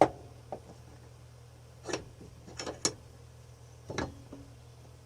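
A steel adjustable wrench being handled and set in a bench vise: one sharp metal knock at the start, then a few lighter clinks and knocks spread over the next four seconds, over a faint steady hum.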